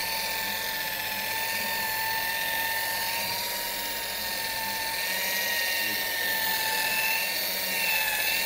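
Rotary car polisher running steadily with its foam pad pressed against the bonnet paint during a cutting pass, a constant motor whine over the hiss of the pad on the paint.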